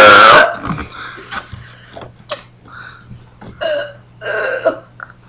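A child burping: one loud burp at the very start, then a couple of short, much smaller burps later on.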